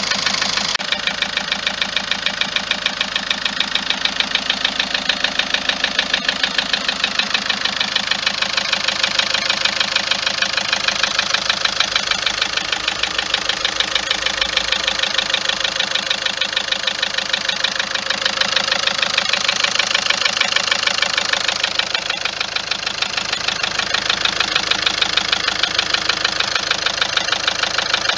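Car engine idling with a steady, rapid ticking knock that does not let up. The mechanic puts the knocking down to the injectors and the tappets.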